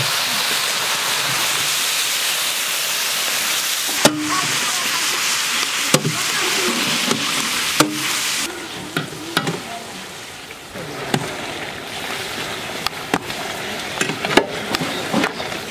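Raw chicken pieces sizzling in hot spiced oil in a large steel pan as they are stirred with a long paddle. The sizzle is loud and even, then eases about eight seconds in, leaving scraping and sharp knocks of the paddle against the pan.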